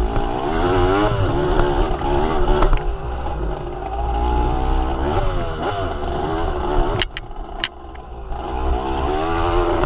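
Vehicle engine running under way, its pitch rising and falling as it revs up and eases off, over a low rumble, with a couple of sharp clicks about seven seconds in.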